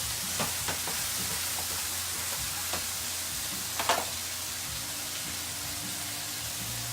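Chicken halves sizzling steadily in a hot pan of braising liquid (beer, citrus juice and honey) that is cooking down. A few light knocks come early, and one sharper knock comes about four seconds in.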